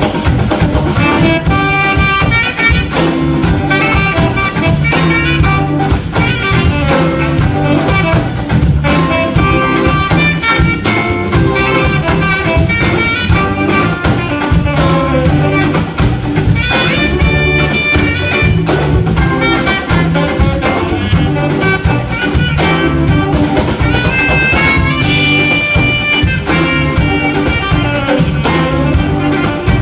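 Live blues band playing an instrumental break, with a saxophone solo over guitar, bass and drums; the sax holds a long high note about 25 seconds in.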